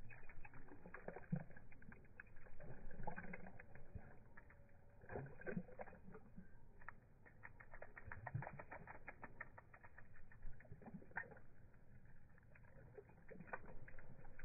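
A dog lapping and licking water from a handheld portable water bottle: many quick, irregular wet clicks.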